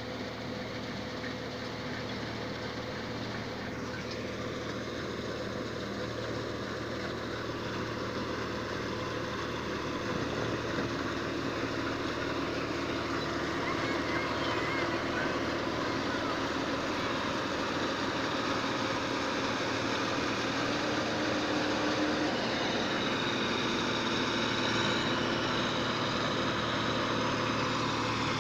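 Combine harvester's diesel engine running steadily in a rice field, slowly getting louder. A thin high whine joins in near the end.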